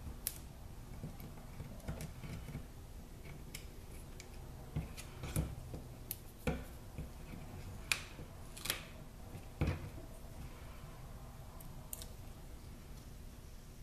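Small scissors snipping now and then, along with light clicks of foam adhesive dimensionals and paper pieces being handled. About a dozen short, sharp snips and clicks come at irregular intervals, the clearest in the middle stretch.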